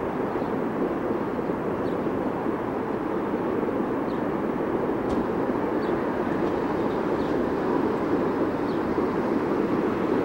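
Steady hum of distant city traffic heard from a hilltop, even throughout, with a few faint high chirps.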